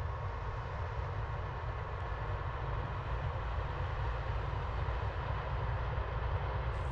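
Steady low rumble of a running engine in harvest machinery, with a faint steady whine above it and no change in speed.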